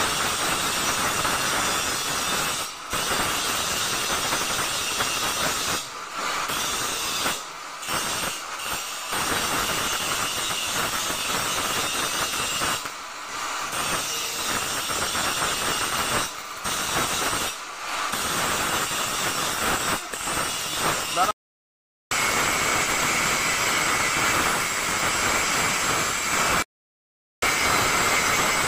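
Handheld angle grinder grinding down the welded joints of a steel window grill: a continuous hissing grind with a steady whine, dipping briefly every few seconds as the disc comes off the metal. The sound drops out twice for under a second near the end.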